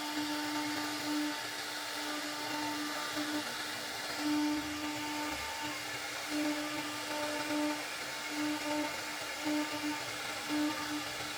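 CNC router spindle running steadily and cutting wood, a high-pitched motor whine with a lower hum that comes and goes.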